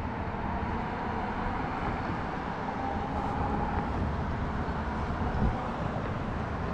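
Wind rushing over the microphone and road noise while riding a Dualtron Thunder electric scooter, with a faint steady whine that drifts slightly lower in pitch during the first few seconds.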